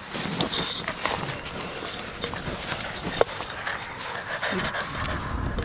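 Yellow Labrador puppy panting, with scattered small clicks and taps as it chews on something.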